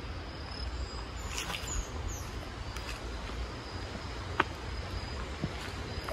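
Garden woodland ambience: an insect trills steadily at a high pitch, on and off, while a bird gives two short falling chirps a little under two seconds in. A single sharp tick about four and a half seconds in, over a low rumble.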